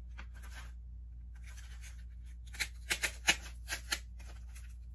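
Handling noise from plastic Easter eggs on sticks in a foam ring as the ring is picked up: light rustling, then a quick run of about six sharp clicks and taps past the middle.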